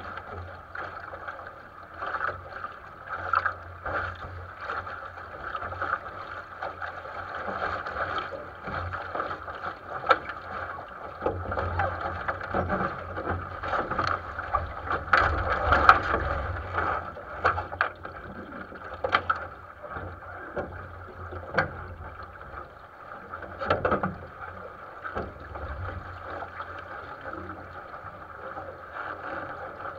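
Water rushing and slapping against the hull of a 470 sailing dinghy under way: a steady rush broken by frequent irregular slaps and knocks, loudest about halfway through.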